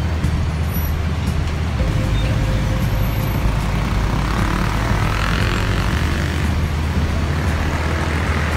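Heavy city road traffic, a steady rumble of idling and creeping cars and motorbikes. About halfway through, a KL Monorail train on the elevated track passes, its whine rising and then fading.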